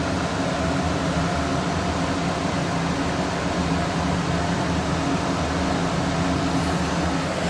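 A fan motor running, a steady whirring hum that does not change.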